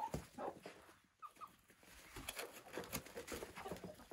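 Chickens at a feeder making soft clucks and a couple of short high chirps about a second in, with scattered pecking and scuffling noises.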